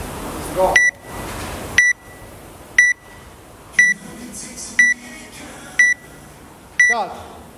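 Electronic timer beeping a countdown to the start of a workout: seven short, high-pitched beeps, one a second, starting about a second in.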